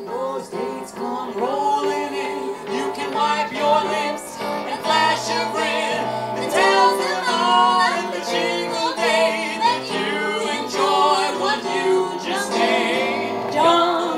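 A woman singing live into a microphone, accompanied by held chords on an electronic keyboard.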